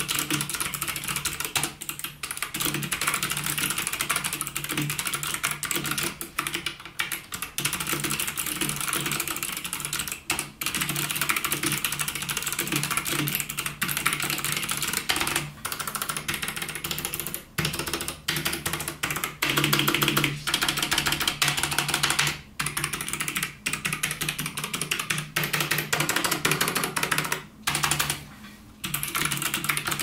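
Typing on a Micronics Manic K532 mechanical keyboard: a dense, continuous clatter of keystrokes, broken by short pauses every few seconds.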